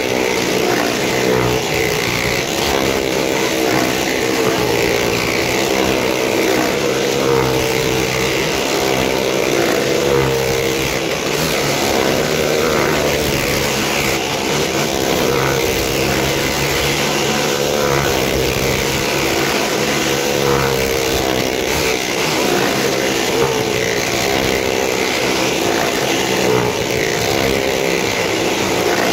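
Motorcycle engine running steadily at speed as it circles the wall of a well-of-death drum, its pitch wavering slightly.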